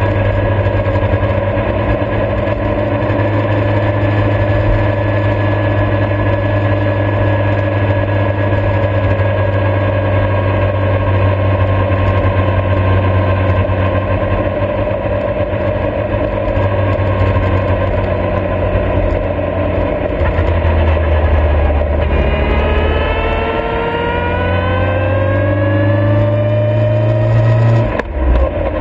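Motorcycle engine running at steady cruising speed with wind rush. About three-quarters of the way through, the engine note climbs steadily as it accelerates, then drops sharply near the end.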